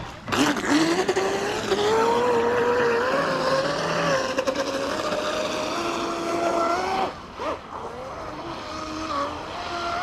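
Pro Boat Blackjack 42 RC catamaran's brushless motor whining as it launches from the shore at full throttle, the pitch rising as it speeds away over the water. About seven seconds in the whine briefly dips, then wavers at a lower pitch as the throttle is worked.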